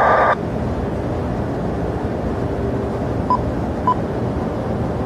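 Steady low rumbling airport noise, with a brief burst of air-band radio squelch static at the very start and two short faint beeps about three and four seconds in.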